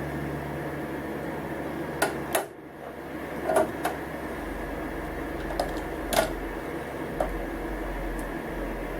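Scattered light clicks and taps of small metal parts and tools being handled on an embroidery machine head while a new slider hook is fitted, over a steady hum.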